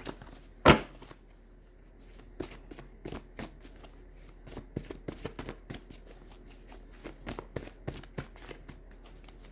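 A deck of tarot cards being shuffled by hand: one sharp tap a little under a second in, then a long run of quick, soft card clicks.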